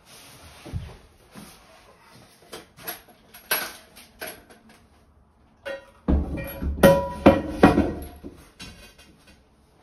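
Ceramic pedestal sink basin knocking and clunking as it is handled and set onto its pedestal and wall bracket. Scattered light clicks give way, about six seconds in, to a run of heavier thuds and knocks with a brief ceramic ring, which dies away near the end.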